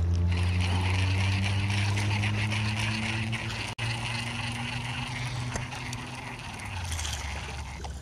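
A boat motor running steadily with a low hum whose pitch drifts slightly, cutting out for an instant a little before the middle.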